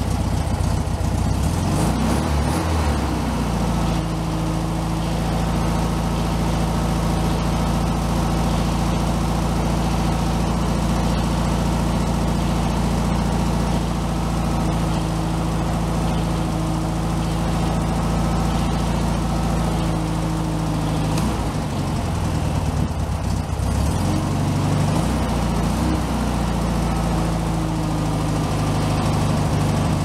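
1964 Volkswagen Beetle's 1500cc air-cooled flat-four engine idling while it warms up. Its speed shifts a couple of seconds in, then dips and wavers from about 20 to 27 seconds before settling a little lower, as the carburettor's idle screw is adjusted. This is a check of the idle after brittle vacuum advance hoses, suspected of a vacuum leak, were replaced.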